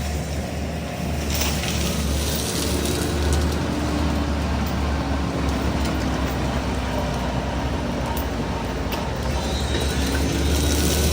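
Yanmar ViO55 mini excavator's diesel engine running steadily under load while its FEMAC T9 mulcher head works through undergrowth, with a few sharp knocks.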